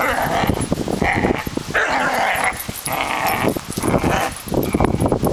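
Two young Doberman pinschers play-fighting and tugging over a toy, with short dog vocalisations coming about once a second.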